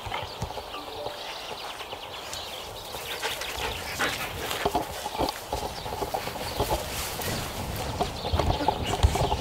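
Dogs moving about and sniffing one another on grass: a run of short scuffs, rustles and ticks, with one louder knock near the end.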